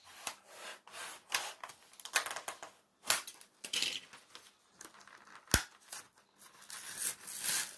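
Utility knife blade scraping and cutting through a plastic blister pack, then the plastic rustling and crinkling as it is pulled open by hand, in short irregular scratches. A single sharp click about five and a half seconds in is the loudest sound.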